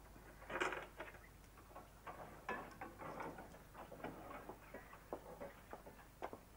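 Faint, irregular clinks and knocks of kitchen work, crockery being handled and set down, with one louder clatter about half a second in.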